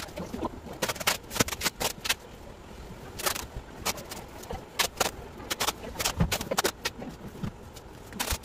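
Brown packing tape being pulled off the roll and pressed onto a cardboard box: a string of short, sharp rasping rips at irregular intervals, with hands tapping and rubbing the cardboard.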